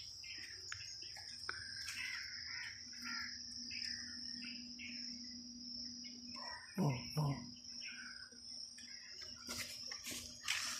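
Outdoor ambience of a steady, high insect trill with birds chirping on and off. A brief voice-like sound comes about seven seconds in, and a few clicks near the end.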